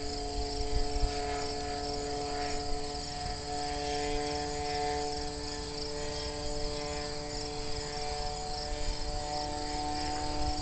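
Crickets chirping in a fast, even pulse over a steady distant engine drone, the powered hang glider's motor as it climbs far overhead.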